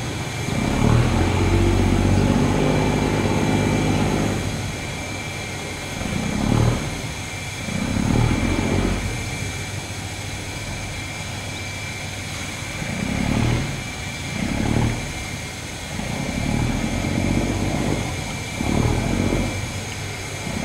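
A river cargo barge's engine running, a steady hum that is loudest in the first few seconds, then swells and fades again several times.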